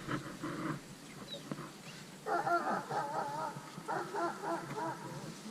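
Two long animal calls, one just after the other, each with a shaky, quavering pitch.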